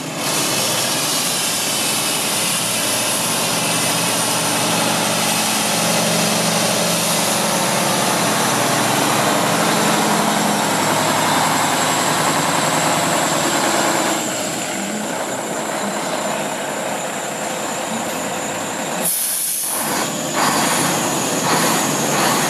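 Diesel engine of a 2004 Mack CX612 day-cab tractor running as the truck moves off and then stands, getting somewhat quieter about fourteen seconds in. There are a few short knocks near the end.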